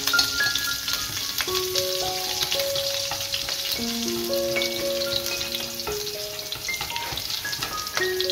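Minced garlic sizzling and crackling in hot oil in a stainless steel wok, being stirred with wooden chopsticks. Soft background music of held, changing notes plays over it.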